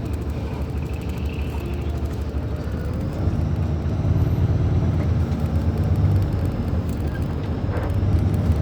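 Diesel engine of a Mascarello Roma M4 bus on an Iveco chassis running with a steady low drone, growing louder about three seconds in. A faint high whine rises in pitch alongside it.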